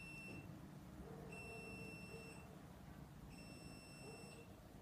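Faint, high-pitched electronic beep, each about a second long, repeating about every two seconds: the tail of one at the start, then two full beeps.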